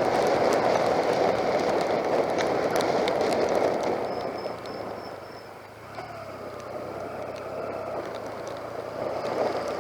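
Wind and rain rush of a motorbike ride in torrential rain. The rush dies down about four seconds in as the bike slows, then the engine note comes through, rising gently as it pulls away.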